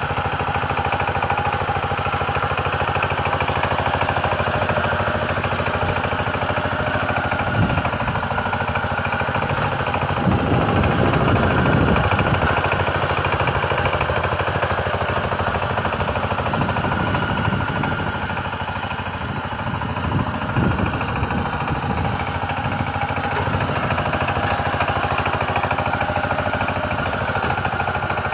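Kamco walk-behind power tiller's single-cylinder diesel engine running steadily as its rotary tiller works through flooded paddy mud. The engine note grows louder and rougher for a couple of seconds about ten seconds in, and briefly again about twenty seconds in.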